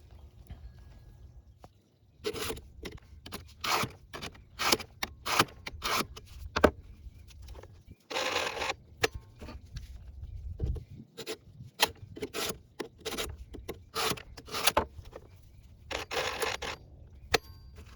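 A 2-in-1 chainsaw file sharpener rasping along the saw chain, its round file in the cutter tooth and its flat file over the raker in the same pass. The strokes start about two seconds in and come about every half second, with a few longer strokes and short pauses between teeth.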